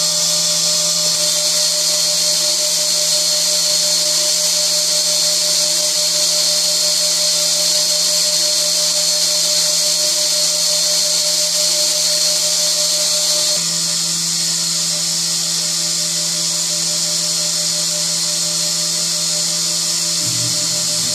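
High-speed spindle of a small CNC milling machine running with a steady high-pitched whine while its cutter machines an aluminium part under coolant. The whine eases slightly about two-thirds of the way through, and a low pulsing starts near the end.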